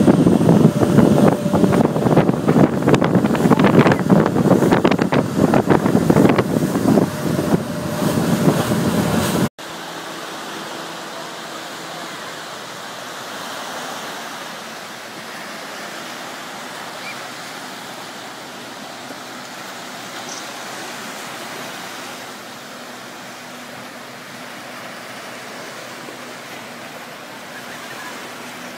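Wind buffeting the microphone over a boat's running motor, with a faint steady hum. About nine and a half seconds in it cuts off abruptly to small waves breaking on a sandy beach, a steady, quieter wash of surf.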